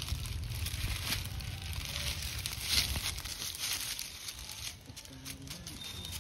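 Crinkling and rustling of a plastic snack wrapper handled by a macaque among dry leaves, in short irregular crackles, loudest about three seconds in.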